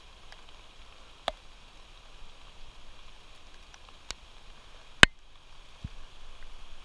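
Steady hiss of rain with a few sharp clicks: one about a second in, one about four seconds in, and a much louder one about five seconds in.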